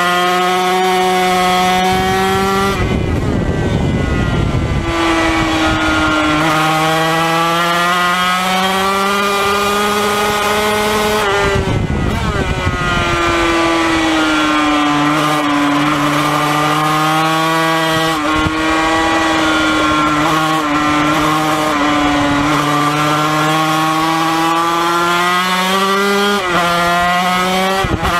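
Yamaha TZ250's two-stroke twin engine running hard at high revs, its note rising and falling and stepping with throttle and gear changes. Twice, about three seconds in and again about twelve seconds in, the steady note breaks into a couple of seconds of rough, ragged noise.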